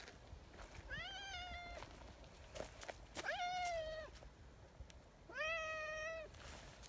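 Brown tabby cat meowing: three long meows about two seconds apart, each rising at the start and then held.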